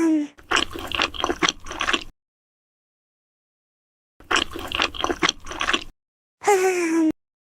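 Wet eating sounds: two bursts of squishy, slurping bites with a pause between them. A short tone slides down in pitch near the end.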